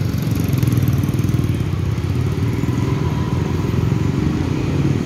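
Busy street traffic below, mostly motorcycles with cars among them, engines running in a steady low din.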